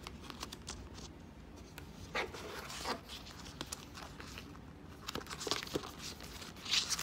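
Paper memo pads being handled and leafed through: scattered rustles of paper and light taps, the loudest just before the end.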